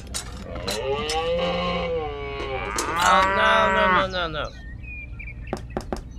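A cow mooing twice, two long calls one right after the other that each rise and fall in pitch, followed by a few light clicks near the end.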